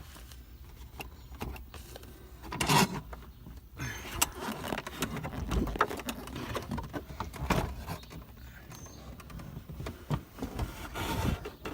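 A plastic car center console being handled and worked into place: irregular rustling and scraping with several sharp clicks and knocks, the loudest about three seconds in.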